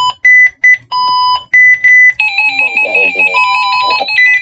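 Electronic weather-radio alert beeps: short beeps at a high and a lower pitch in an uneven on-off pattern. About two seconds in, a continuous wavering high alarm tone joins them.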